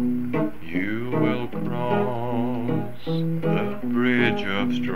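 Acoustic guitar playing the song's accompaniment on a 1959 amateur home tape recording, with a wavering melody line held over steady chords.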